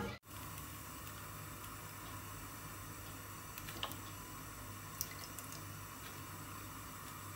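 Coconut oil poured in a thin stream into a non-stick frying pan: a faint, steady trickle with a couple of small ticks.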